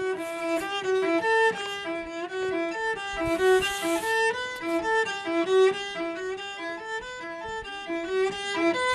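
Solo cello playing a quick, flowing line of bowed notes in its upper register, the notes changing about three times a second.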